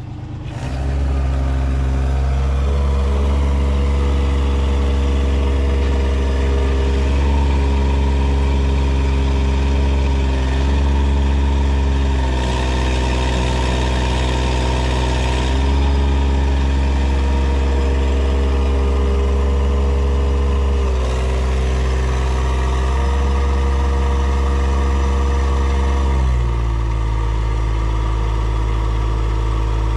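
New Holland LS465 skid steer engine running steadily at working speed while the loader lifts a round bale on pallet forks. Its pitch dips briefly several times as the loader takes load, then settles lower near the end.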